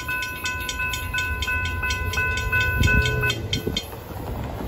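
Railroad grade-crossing warning bell ringing about three strikes a second, then stopping about three seconds in as the gates rise after the train has cleared. Low traffic rumble runs underneath.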